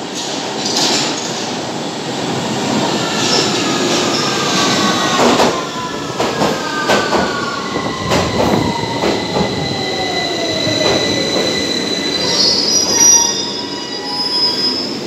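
A London Underground 2009 Stock Victoria line train running in to the platform and braking to a stop. Its electric motor whine falls steadily in pitch as it slows, over a rumble and repeated clicking of wheels on the rails. High-pitched squealing comes in near the end as it halts.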